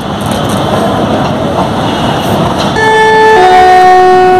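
Loud railway-station din, then about three seconds in a train horn sounds: a higher note that steps down to a lower, held note.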